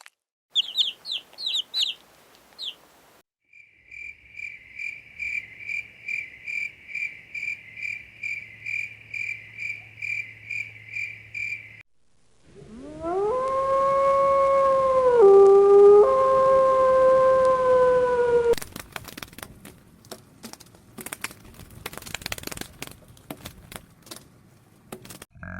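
A run of different animal calls one after another. First come a few short high chirps. Next is a long series of evenly repeated high calls, about two to three a second. Then a single drawn-out call of about six seconds drops in pitch partway and comes back up, followed by scattered clicks.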